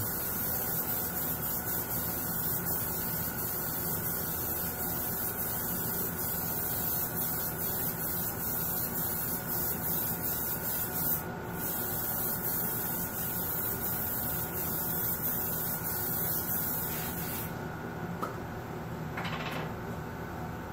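Airbrush hissing steadily as it sprays a light first coat of paint, with a brief break about eleven seconds in, and stopping a few seconds before the end. A steady electric hum runs underneath throughout.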